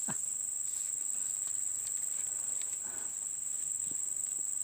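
Insects chirring with one steady, unbroken high-pitched drone.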